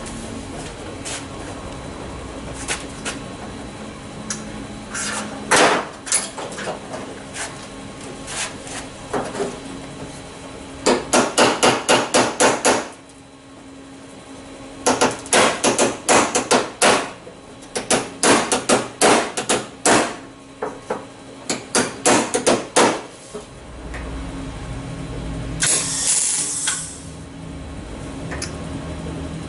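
Hammer tapping a sheet-steel patch panel into shape against a 1956 Chevrolet truck fender, in clusters of sharp metallic strikes, one fast run of about six a second. Near the end comes a short burst of MIG welding hiss as the panel is tacked.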